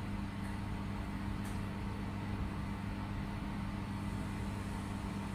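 Steady low electrical hum from a handheld laser welding machine's cabinet running idle, with a few even low tones and no welding being done.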